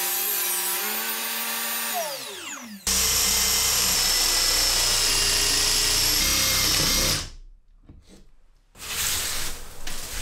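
Woodworking power tools. An electric motor whirs at a steady pitch that dips and recovers, then winds down about two seconds in. After an abrupt cut, a louder tool runs with a steady high whine for about four seconds and dies away, followed by softer shop noises near the end.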